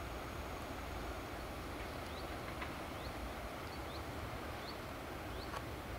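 Steady low outdoor rumble and hiss, with a small bird repeating short, rising chirps about every three-quarters of a second from about two seconds in.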